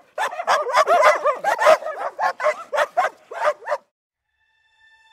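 Dog yipping and barking in quick, high, wavering yelps, several a second, that stop abruptly about four seconds in; faint steady tones come in near the end.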